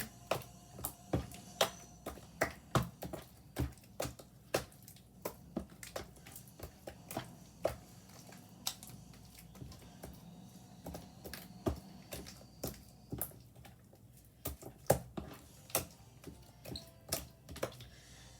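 Wet, sticky slime being squeezed and worked in the hands, giving irregular sharp clicks and pops a few times a second, with quieter gaps and a loudest pop about fifteen seconds in.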